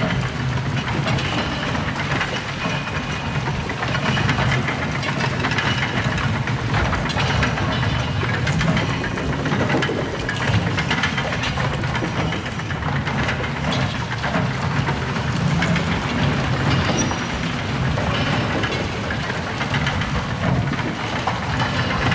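Big Thunder Mountain mine-train roller coaster running along its track: a continuous low rumble with dense rattling and clacking of the cars and wheels.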